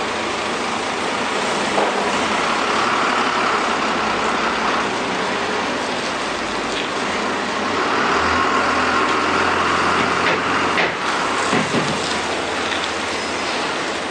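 A heavy vehicle's engine running steadily, with a deeper hum swelling partway through and a few short knocks.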